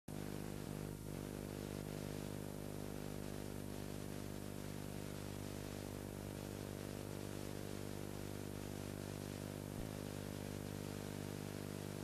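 A steady low hum made up of many tones, with a layer of hiss over it, unchanging throughout. A faint knock about ten seconds in.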